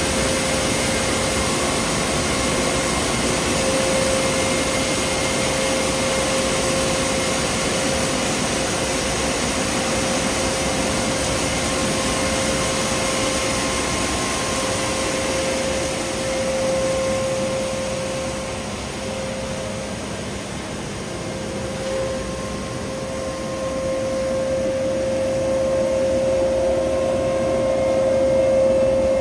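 Stock Sweepers S8400 truck-mounted road sweeper working along the kerb: a steady rush of suction and gutter brush with a steady whine. It grows quieter about two-thirds of the way through and swells again near the end.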